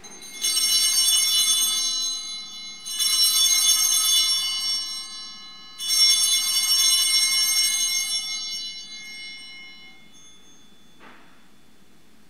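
Altar bells rung three times at the elevation of the chalice during the consecration, each ring a bright jangle of many high tones that lasts two to three seconds and fades; the third ring dies away about ten seconds in.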